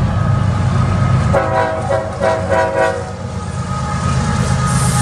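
CSX freight train's GE Evolution-series diesel locomotives rumbling past, with the lead locomotive's horn sounding a chord in two short blasts about a second and a half in.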